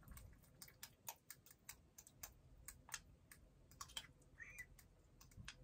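Faint, irregular small clicks and light taps, a few a second, from food and utensils being handled at a counter, with a short high chirp about four and a half seconds in.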